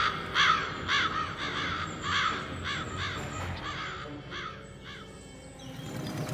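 Crows cawing over and over, about two harsh caws a second, growing fainter and stopping after about five seconds.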